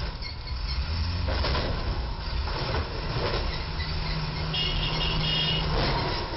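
Steady low traffic rumble from a box truck's engine and a passing car, with a low hum joining in midway and a high squeal lasting about a second near the end.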